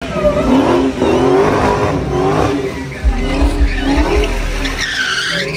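Dodge Charger's Hemi V8 revving up and down repeatedly as the car spins donuts, with tires squealing in a high sweep near the end.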